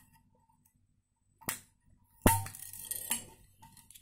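Metal scissors snipping the crinkled shrink-wrapped plastic around a steel thermos flask: a click about a second and a half in, then a sharp snip a little after two seconds followed by about a second of plastic crackling, and another click near three seconds.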